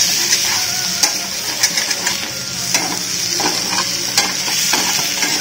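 Chicken roast sizzling in oil on an iron tawa while a metal spatula stirs it, with a steady high hiss and scattered scrapes and clicks of the spatula on the pan. The masala has cooked down to the stage where the oil separates, the sign the roast is done.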